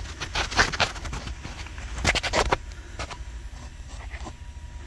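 A few short knocks and scuffs, with a low steady hum underneath.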